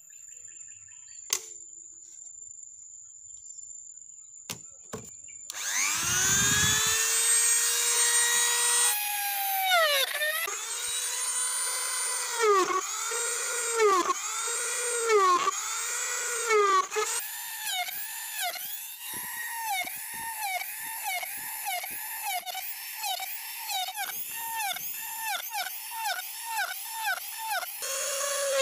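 Handheld mini rotary tool switching on about five seconds in and spinning up to a steady whine, then boring holes in PVC pipe. Its pitch dips and recovers each time the bit bites into the plastic, about once a second at first, then faster, about three times every two seconds. A few light clicks come before it starts.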